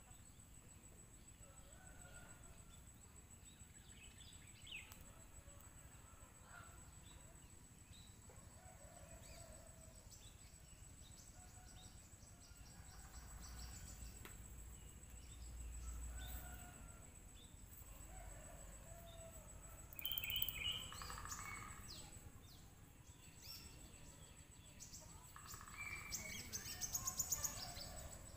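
Hair cracking during a head massage: strands of hair are tugged to give short, sharp crackling sounds, scattered at first and then as a quick run of crackles near the end.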